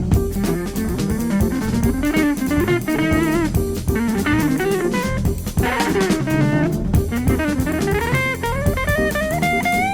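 Instrumental easy-listening background music with a steady beat; a melody line climbs in pitch near the end.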